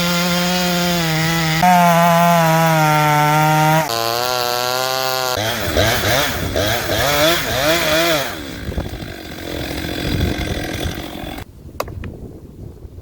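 Two-stroke chainsaw engine running at high revs, its pitch stepping up and down, then wavering up and down for a few seconds before the saw stops about two-thirds of the way through.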